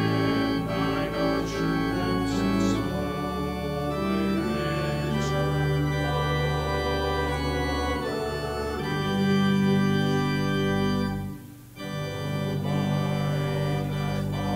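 Church organ playing sustained chords over a deep held bass note, the harmony shifting every second or two, with a brief break between phrases about eleven seconds in.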